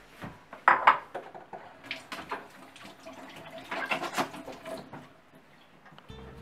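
Kitchen handling noise: a few sharp knocks and clinks of things set down and moved on a countertop. The loudest are about a second in, with more clattering around two and four seconds.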